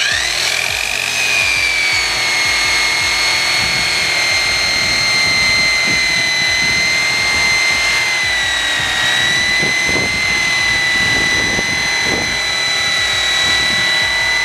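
Corded angle grinder with a buffing wheel switching on, spinning up with a rising whine and then running at a steady high whine while polishing chrome trim; its pitch sags slightly about nine seconds in.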